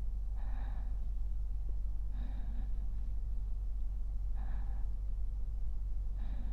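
A man breathing slowly in his sleep close to the microphone: four soft breaths about two seconds apart, over a steady low hum.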